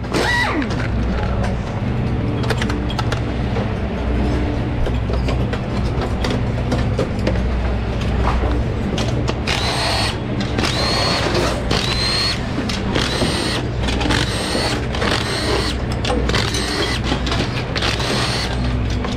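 Cordless impact wrench spinning out valve-cover bolts on a supercharged Hemi drag-racing engine during a between-rounds teardown. It comes in short bursts about a second apart from about halfway through, each with a rising whine as the motor spins up. Underneath runs a steady low hum.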